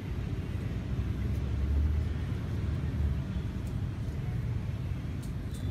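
Low, fluctuating outdoor rumble that swells about a second and a half in, with a few faint clicks near the end.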